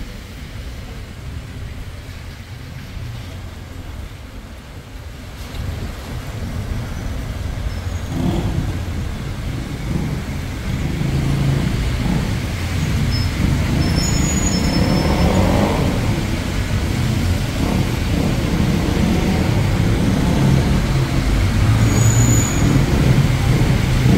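Road traffic on a wet street: cars and heavier vehicles passing, with engine rumble that grows louder from about six seconds in. A brief high squeak near the end.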